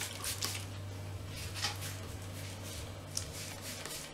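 Hand-held trigger spray bottle misting hair: several short, irregularly spaced spritzes of hiss.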